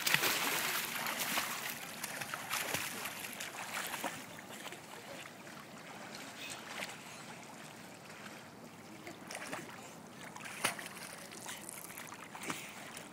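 A child swimming across a pool, arms and kicking feet splashing the water. The splashing is loudest at the push-off at the start, then settles lower, with a couple of sharper splashes near the end as she reaches the wall.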